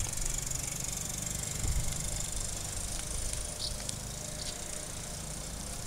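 Steady high-pitched chirring of insects in summer grass, over a steady low rumble, with a few faint ticks.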